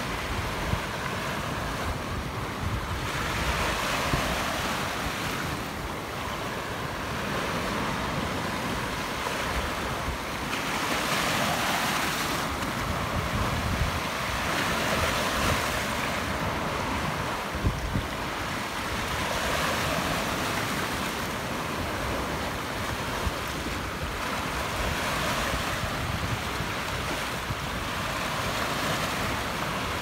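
Sea surf washing over a flat rock shelf at the water's edge: a steady hiss of foaming water that swells and eases every few seconds as each wave runs in and drains off.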